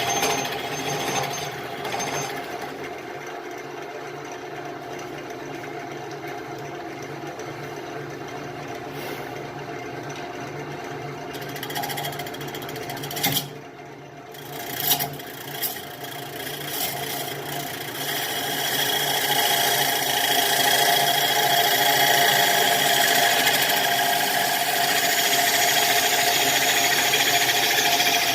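Wood lathe running while a tool works the spinning Russian olive bowl blank, with steady rubbing and scraping over the motor hum. A few sharp knocks come about halfway through, and the cutting grows louder and harsher from about two-thirds of the way in.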